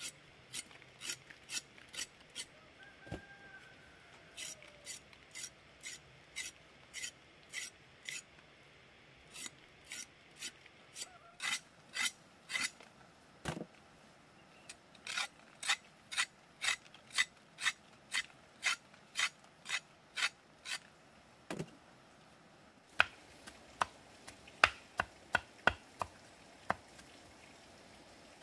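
Rhythmic rasping strokes of a hand tool working material, about two a second, turning near the end into sharper, irregular knocks.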